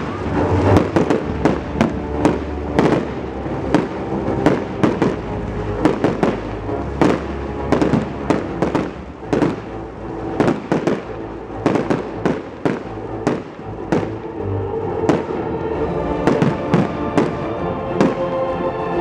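Aerial fireworks shells bursting in quick succession, several sharp bangs a second, over music played with the show; the music comes more to the fore near the end.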